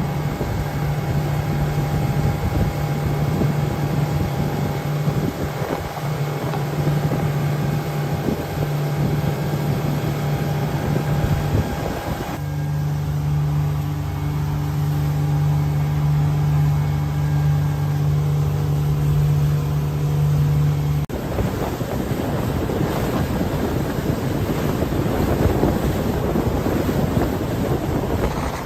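Motorboat engine running steadily with wind buffeting the microphone. About three-quarters of the way through, the engine hum stops and only wind and water noise remain.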